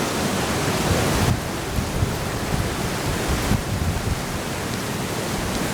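Strong wind of about 20 miles an hour gusting into the microphone: a steady rushing hiss over an uneven, buffeting low rumble.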